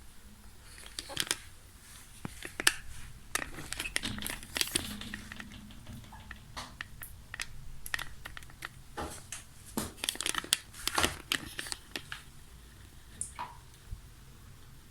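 Scattered light clicks and crinkling rustles of small plastic toys being handled.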